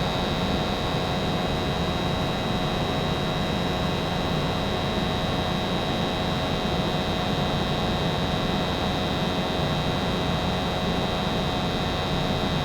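American Standard 90% gas furnace running steadily with its blower on: a constant hum with a faint high whine, no change throughout.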